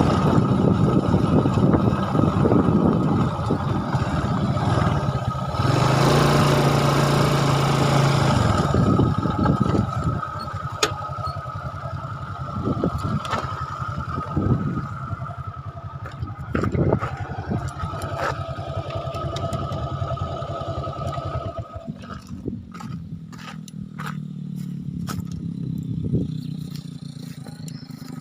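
Motorcycle engine running while riding. It is louder for the first several seconds, then quieter, and its sound shifts lower about two-thirds of the way through, with some clatter.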